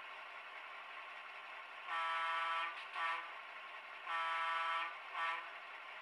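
Econami diesel sound decoder in an HO-scale model switcher sounding its main horn through a small cell-phone speaker: a long blast followed by a short one, twice, over a steady low hum.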